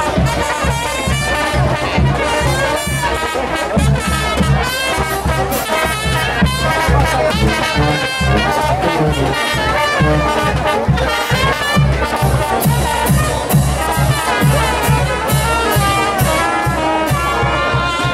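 Brass band music with trumpets and trombones over a steady bass beat.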